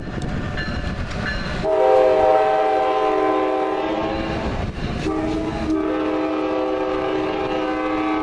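A passenger train's multi-tone air horn sounds two long blasts over the rumble of the moving train, the horn signal for a train starting off.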